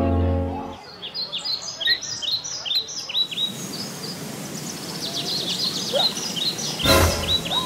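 Small birds chirping: many short, high, quick chirps that drop in pitch, overlapping continuously, with a sharp thump about seven seconds in. A steady droning tone cuts off less than a second in.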